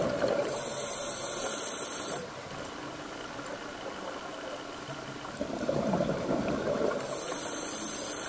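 Scuba diver breathing through a regulator underwater: a rattling rush of exhaled bubbles at the start and again about five and a half seconds in, each followed by a high hiss from the regulator lasting about two seconds.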